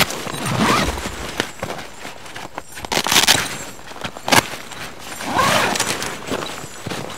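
Heavy canvas tent fabric crackling and rustling as it is lifted and handled, in three swells, with boots crunching on snowy, bark-strewn ground.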